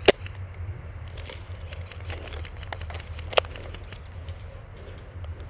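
Two single airsoft gun shots, sharp snaps about three seconds apart, over a low steady rumble of wind and movement with a few faint clicks.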